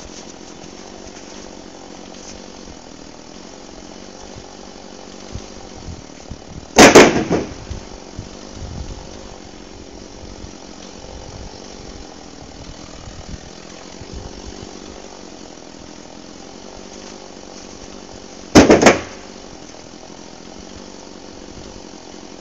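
Jonsered chainsaw running at idle, revved in two short loud bursts: one about seven seconds in and another about eighteen seconds in.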